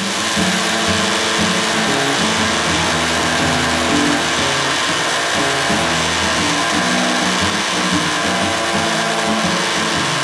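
Rotary power tool running steadily with its wheel worked against steel pliers, a continuous hissing whir, with acoustic blues guitar music underneath.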